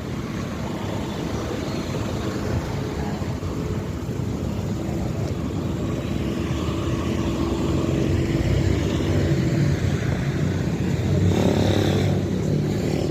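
A motor vehicle's engine running, growing louder as it comes close.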